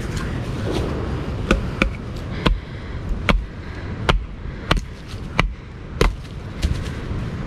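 Wooden baton striking the spine of a knife blade lodged in a knotty piece of pine, splitting it: a run of about nine sharp knocks, roughly two-thirds of a second apart, starting about a second and a half in.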